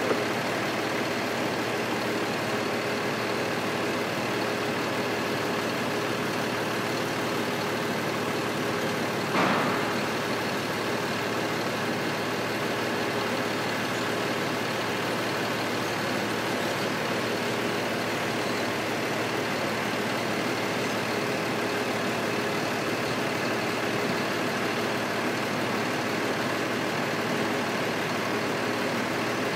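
A vehicle engine idling steadily, with one brief louder sound about nine and a half seconds in.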